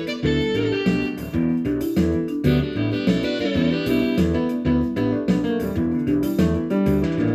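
Background music: an instrumental track led by plucked guitar over a steady bass beat.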